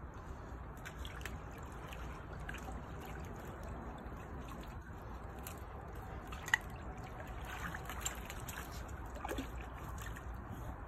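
Faint, steady trickling of swimming-pool water, with one sharp click about six and a half seconds in.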